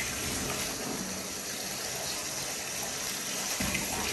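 Water from the tap running steadily into a bubble-filled bathtub, an even rushing.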